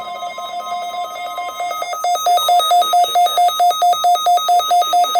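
Weather radio receiver's alert alarm going off after being triggered by the weekly test signal: rapid electronic beeping, about four to five beeps a second, getting louder about two seconds in.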